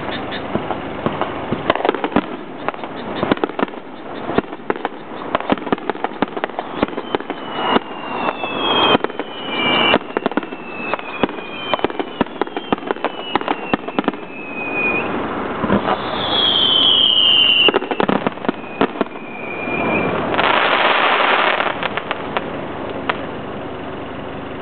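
Fireworks going off: a dense run of sharp cracks and pops, with several high whistles falling in pitch partway through. A louder rushing, crackling burst comes about twenty seconds in.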